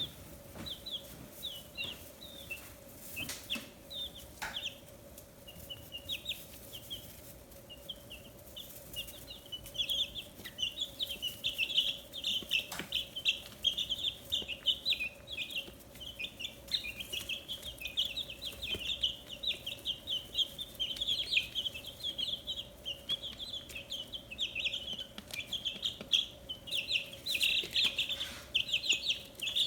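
A brood of fifteen-day-old chicks peeping: short high chirps, scattered at first, thickening into a dense continuous chorus about a third of the way in, with a faint steady hum underneath.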